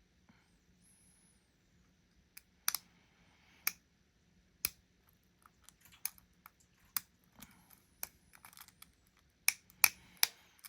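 Lock pick and tension wrench working the pins of a challenge lock: scattered sharp metal clicks with faint scraping between them, the clicks coming closer together and louder near the end.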